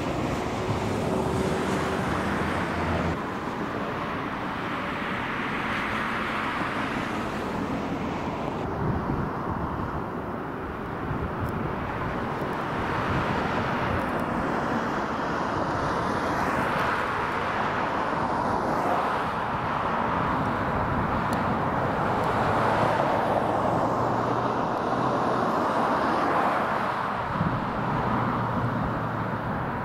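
Outdoor urban background noise of traffic, a rough rushing sound that swells and fades every few seconds, with a faint low hum underneath.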